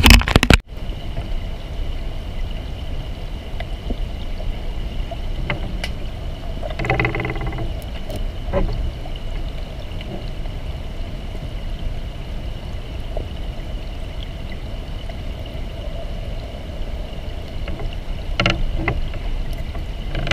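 A loud splash as the camera goes under the river surface, then the muffled underwater sound of a shallow river: a steady low rush with a faint high hum and a few scattered clicks. Short louder bursts come about 7 seconds in and again near the end.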